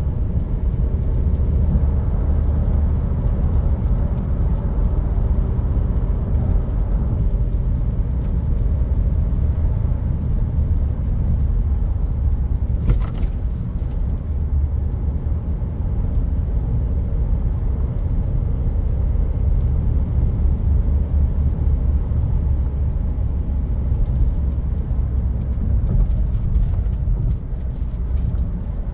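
Land Rover Discovery Sport running with a steady low rumble, with a faint held tone over it for the first few seconds and one sharp click about halfway through.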